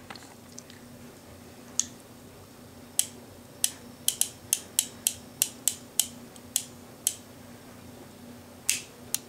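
Sharp metallic clicks from a single-action revolver's cylinder and action being worked by hand: about fifteen single clicks, coming roughly three a second through the middle, with a last pair near the end.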